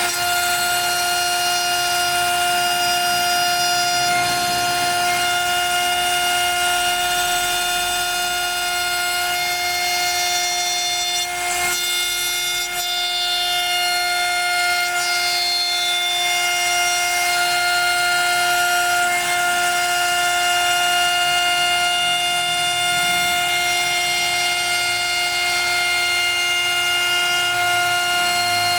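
CNC router spindle running at high speed with a steady, high whine, its bit cutting through MDF with a rushing noise underneath. The sound dips briefly about halfway through.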